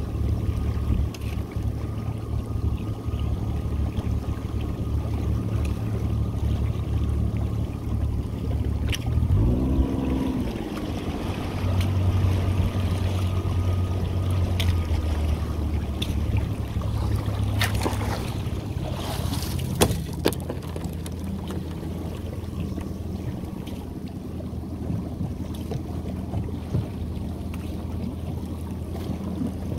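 Small boat's motor idling at low speed, a steady low hum, with a short rise and fall in engine pitch about ten seconds in. A few sharp knocks come later on.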